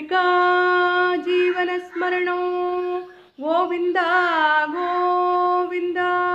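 A woman singing a devotional verse unaccompanied, holding long, steady notes in phrases, with a quick wavering ornament a little past the middle.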